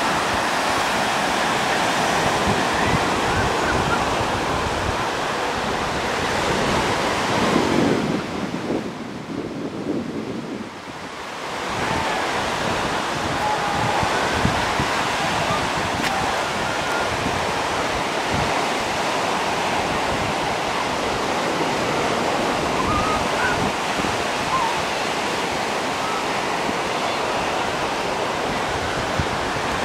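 Lake Michigan surf breaking on a sand beach: a steady rush of waves, with wind buffeting the microphone. The sound drops away briefly about eight seconds in, then comes back.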